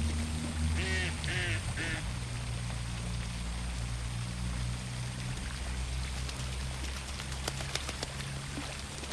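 A duck quacking three times in quick succession about a second in, over a steady low hum, with a few faint clicks near the end.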